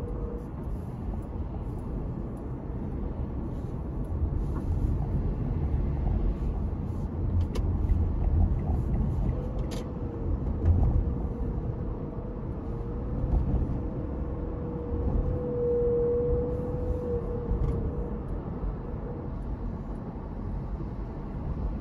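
Steady low road rumble of a car driving, heard from inside the car. A faint, slightly wavering whine joins about nine seconds in and fades out a few seconds before the end, and there is a single sharp click near the middle.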